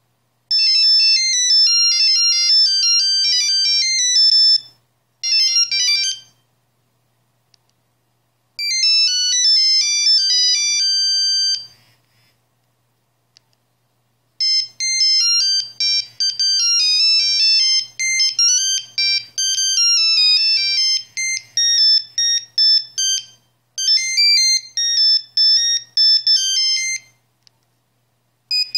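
Nokia 6210 mobile phone playing its built-in monophonic ringtones through its loudspeaker. Several high, beeping single-note melodies follow one another, separated by short pauses.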